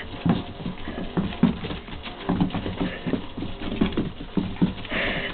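A dog scrambling and jumping about on a hard floor: quick, irregular footfalls and thumps of its paws and claws, several a second.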